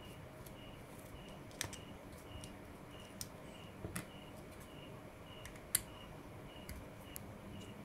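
Small hex screwdriver backing out the tiny screws on an FPV camera's side mount: a few faint, sharp clicks and taps of metal on the screws and camera housing, a second or two apart. A faint high beep repeats about twice a second underneath.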